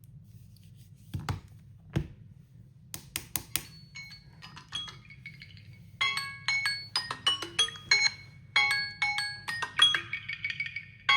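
Smartphone alarm or timer ringtone: a fast melody of short ringing notes, sparse at first and then dense and louder from about six seconds in. It is preceded by two soft knocks and a few clicks, as the phone is handled.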